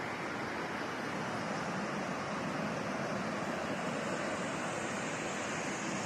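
Steady rushing of a shallow rocky stream and a waterfall: even, unbroken water noise.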